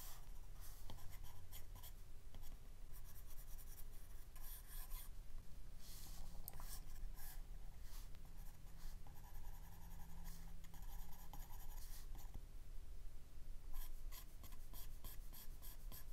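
Apple Pencil tip stroking and tapping on an iPad's glass screen: an irregular run of short scratchy strokes and small clicks.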